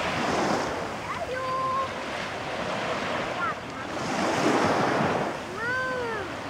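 Black Sea surf breaking on the beach, swelling with each wave, about every four seconds, with wind on the microphone. A couple of short high-pitched calls come through, one near the end.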